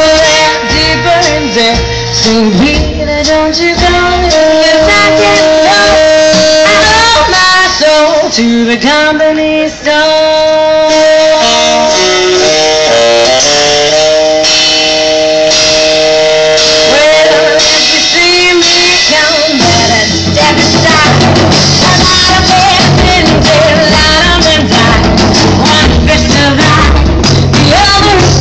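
Live swing band playing: saxophone-led melody with long held notes over upright bass and drums. About twenty seconds in, the bass and drums grow heavier and the band plays fuller.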